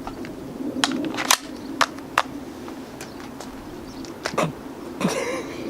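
A handful of sharp clicks and knocks from a gas blowback airsoft rifle being handled or fired: four spaced over the first couple of seconds, then a pair about four seconds in, over a low steady background hum.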